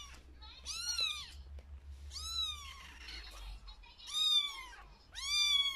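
Young kitten meowing repeatedly: four high-pitched mews, each rising then falling, spaced a second or so apart, the last one drawn out longer.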